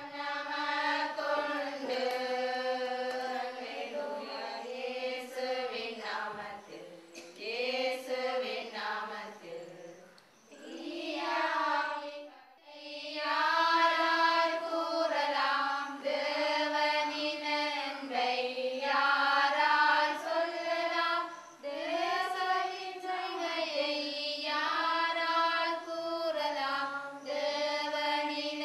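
Voices singing a slow devotional prayer chant in South Indian style, with long held notes and a brief pause about twelve seconds in.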